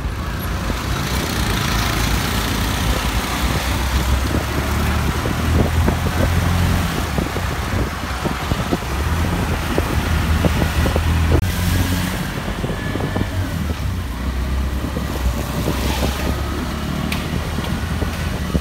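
Road traffic: vehicle engines running as they pass, under a steady low rumble with scattered knocks.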